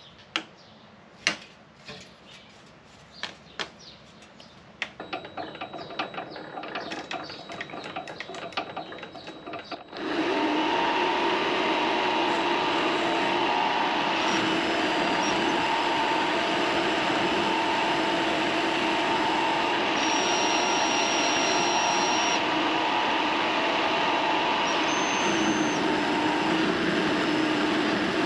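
A string of light clicks and knocks, then about ten seconds in a mini lathe starts suddenly and runs steadily, its motor and spindle giving a constant machine hum with a few high tones coming and going.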